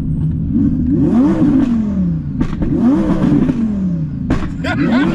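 Twin-turbo Audi R8 engine idling, then revved three times, each rev climbing fast and falling back slowly. Two sharp cracks come between the revs.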